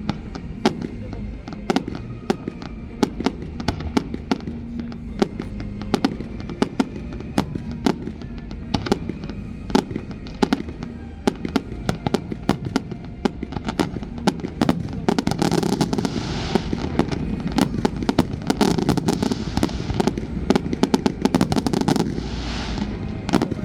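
Fireworks display: shells bursting in rapid, irregular bangs, several a second, turning to dense crackling in stretches during the second half.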